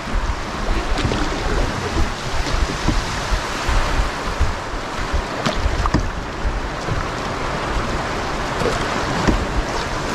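Whitewater rushing and splashing around a canoe running a rapid, with wind rumbling on the microphone and a few sharp knocks and splashes.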